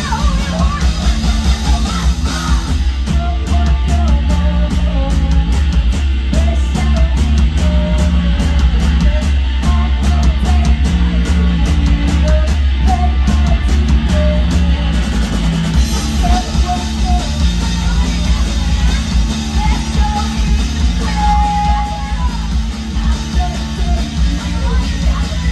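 Live punk rock band playing: distorted electric guitars, bass and drums, with the singer's vocals over them.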